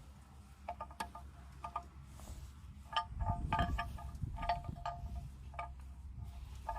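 Short metallic pings, about a dozen at irregular intervals, each ringing at the same set of bell-like pitches, over a steady low wind rumble.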